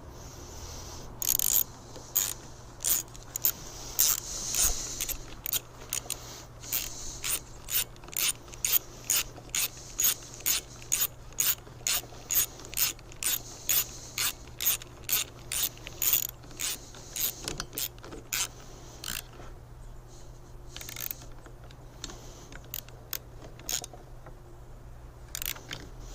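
Ratchet wrench with an 8mm socket clicking as a small fastener is driven on a chainsaw, a steady run of sharp clicks about two a second that thins out to a few scattered clicks after about eighteen seconds.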